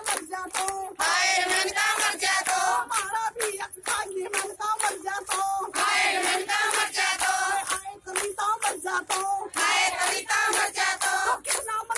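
Women singing together, led by one woman's voice on a microphone, with hands clapping a steady beat of about three claps a second.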